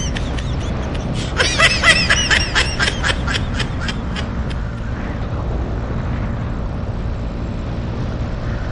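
A man laughing in a quick run of short, high-pitched bursts, from about a second and a half in to about three and a half seconds in, over a steady low rumble of wind on the microphone of the moving camera.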